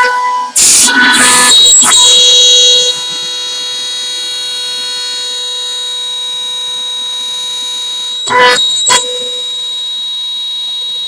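CNC router spindle running with a steady high whine while its bit mills a wooden box-call blank held in a rotary fourth axis. Louder cutting passes come from about half a second to three seconds in, and briefly twice around eight and a half seconds.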